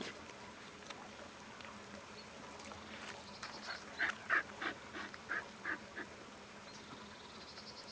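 A run of short, high animal calls, about seven in two seconds, starting about four seconds in, with faint high chirping before and after.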